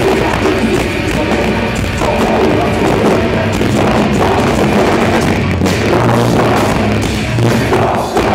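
Live heavy metal band playing loudly: distorted electric guitar, bass and a pounding drum kit.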